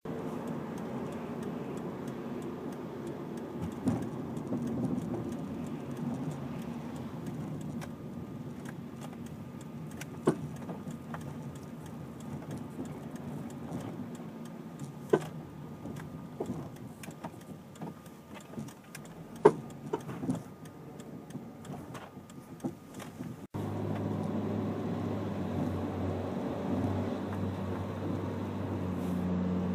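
A Lamborghini Murciélago's suspension giving sharp knocks and clicks at irregular intervals over steady running noise: the abnormal suspension noise being recorded. About three-quarters through, the sound cuts to a steadier, louder low engine drone.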